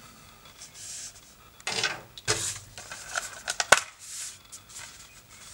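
Cardboard slipcover rubbing and sliding as it is handled and pulled off a metal steelbook case, followed by a quick run of sharp clicks and knocks, the loudest about three and a half seconds in.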